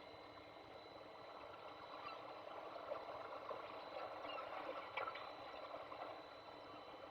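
Steady rushing noise of snowstorm wind on a nest-camera microphone, with a few faint clicks about three and five seconds in.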